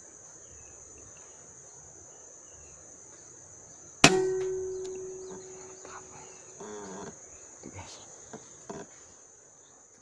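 Steady high chirring of insects, then about four seconds in a single sharp rifle shot with a ringing tone that fades over a couple of seconds. A brief rapid flutter and a few light knocks follow.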